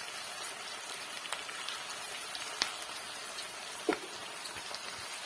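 Sliced onions, dried red chillies and bay leaf frying in hot oil in a wok: a steady sizzling hiss full of tiny crackles, with two sharper clicks in the middle.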